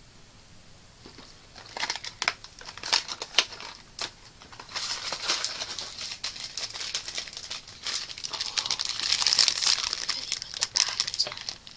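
Snack packaging being handled and opened: a cardboard box and the plastic-wrapped inner pack pulled from it, crinkling and crackling in quick clicks. It starts about two seconds in and is loudest near the end.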